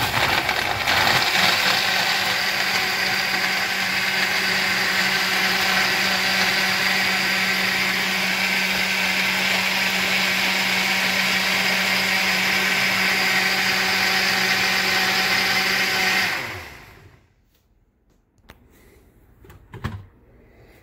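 KitchenAid countertop blender running steadily as it blends a fruit, yogurt and protein-powder smoothie, for about sixteen seconds, then winding down and stopping. A brief knock near the end as the jar is handled.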